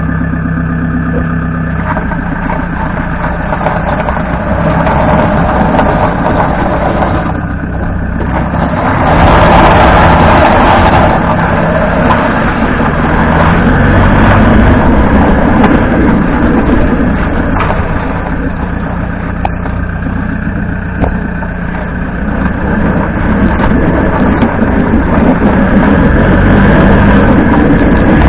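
Toyota HiAce 200-series van on the move: engine running and heavy tyre road noise, with a rattling from the differential that the owner takes for an abnormal diff noise, the hub bearings having already been replaced. A louder rush of noise comes about nine seconds in.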